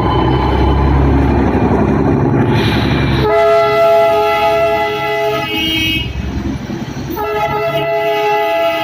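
Darjeeling toy train running with a low rumble, then sounding its horn in two long, steady blasts, the first about three seconds in and the second about seven seconds in.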